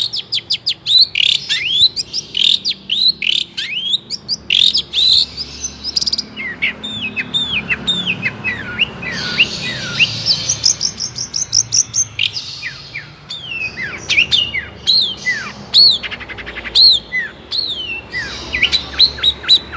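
Long-tailed shrike (cendet) singing a fast, varied song of quick downward-sliding chirps, rapid ticking runs and a harsh buzzy chatter about halfway through.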